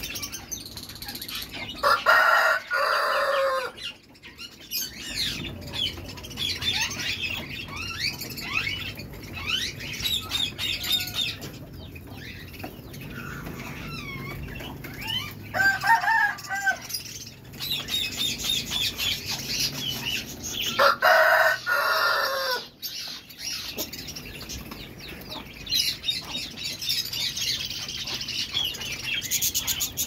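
A flock of budgerigars chattering and warbling steadily. Twice, about 2 seconds in and again about 21 seconds in, a larger bird gives a much louder call of about a second and a half, falling in pitch at the end.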